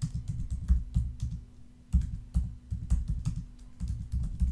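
Typing on a computer keyboard: a quick, irregular run of keystrokes with a short pause near the middle.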